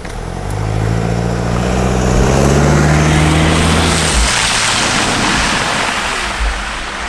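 Mercedes E-Class All-Terrain 4Matic driving through mud and puddles toward the camera. Its engine pulls with a slowly rising tone for the first four seconds or so. As the car passes close by, the hiss of tyres splashing through wet mud takes over, then eases off near the end.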